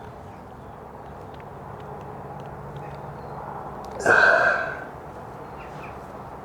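Air Arms TX200 Hunter Carbine .177 underlever spring-piston air rifle firing once, about four seconds in: a sudden sharp report with a brief ringing tail.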